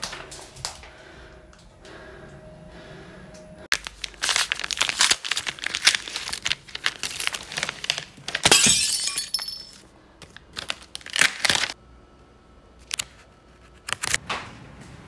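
A ream of A4 copy paper having its wrapper torn open and its sheets handled: irregular crackling, tearing bursts that start about four seconds in, loudest around the middle, then a few short rustles near the end.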